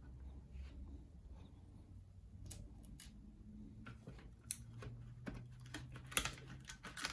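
Faint scattered clicks and taps of small laptop parts and tools being handled during disassembly of the main board, over a low steady hum.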